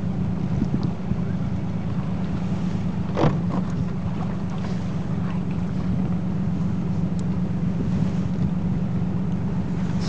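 Steady low rumble of a boat's engine running, with wind on the microphone; a brief knock about three seconds in.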